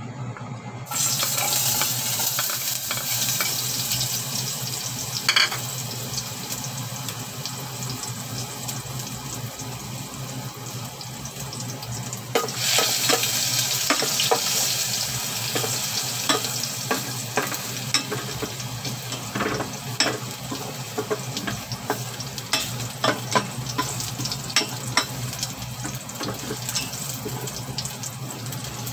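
Minced garlic sizzling in hot oil in a metal pot. The hiss starts suddenly about a second in as the garlic hits the oil and grows louder again about halfway through, with short knocks and clicks from a spoon stirring against the pot.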